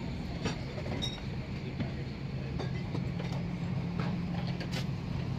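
Steady low hum of an Airbus A330-300's cabin air conditioning during boarding, with scattered light clicks and knocks from passengers moving down the aisle.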